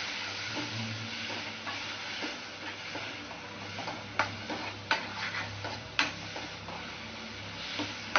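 Mudakkathan keerai (balloon vine greens) sautéing in oil in a pan and being stirred with a spatula: a soft steady sizzle with scattered clicks of the spatula against the pan, the sharpest about four, five and six seconds in.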